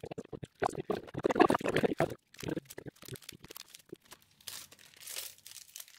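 Foil booster-pack wrappers crinkling and trading cards being handled: a dense burst of crinkling and crackle about a second in, then lighter rustles and short card flicks.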